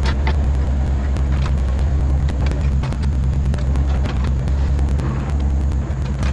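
Volvo EC35C mini excavator's diesel engine running steadily under working load, with frequent short clicks and knocks from the digging.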